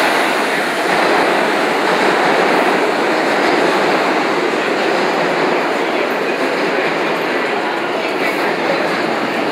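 Vintage 1930s-era New York subway train pulling out of an underground station, its cars running past with a steady, loud noise.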